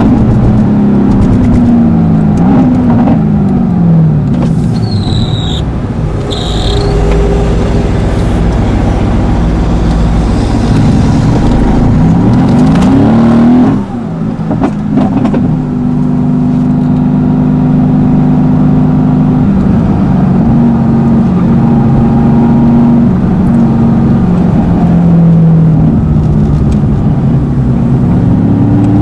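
Mercedes-AMG GT S twin-turbo 4.0-litre V8, tuned to about 760 hp with new turbos and downpipes, accelerating through the gears. Engine pitch climbs and drops back at each upshift. There is a short lift off the throttle about halfway through, then it pulls again.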